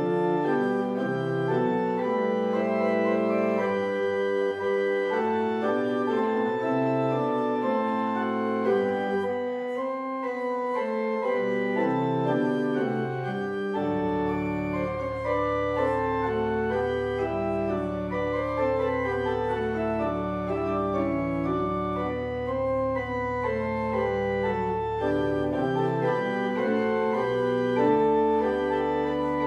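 Church organ played by hand in slow, sustained chords. About halfway through a deep bass note comes in and is held under the moving chords until shortly before the end.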